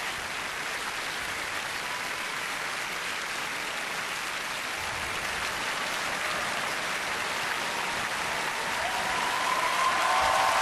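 Audience applause, a steady dense clapping that swells gradually louder toward the end.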